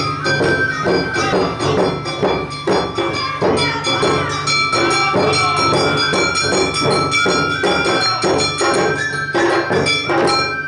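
Awa odori festival music: drums beating a brisk, steady rhythm under the bright ringing of a small hand gong (kane) and a bamboo flute melody.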